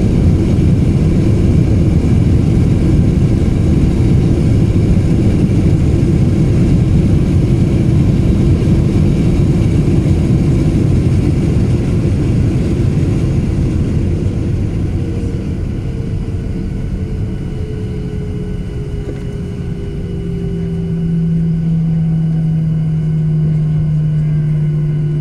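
Boeing 737-800 cabin noise during the landing rollout, heard from a seat over the wing: a loud, low rumble of wheels and engines that eases off over the first fifteen seconds as the jet slows, then a slightly falling whine and a steady engine hum as the CFM56 engines settle at idle for taxi.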